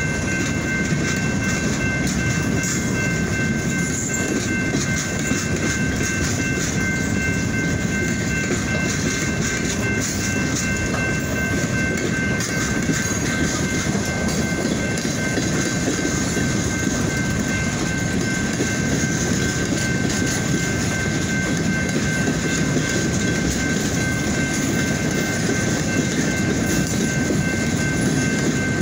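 Freight train of boxcars rolling steadily past: a continuous rumble and rattle of steel wheels on the rails, with a steady high whine running through it.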